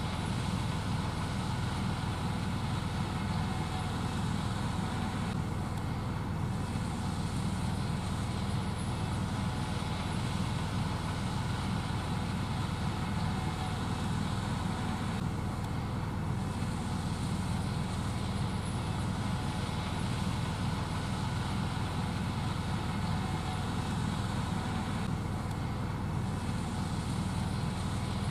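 Gleaner S78 combine harvester running steadily while shelling corn, a constant deep machine drone.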